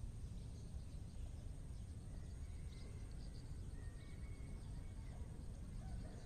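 Quiet outdoor pond-side ambience: a steady low rumble, with faint short bird calls a few times and a thin steady high tone.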